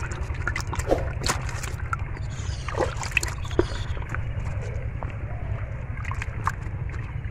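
Shallow water sloshing and splashing, with many short clicks and knocks, over a steady low rumble.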